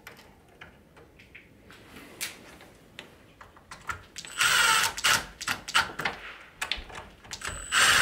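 Cordless driver running in two short bursts, about four seconds in and again near the end, driving the screws of a door latch plate into the door edge. A few light clicks of handling the latch and screws come before.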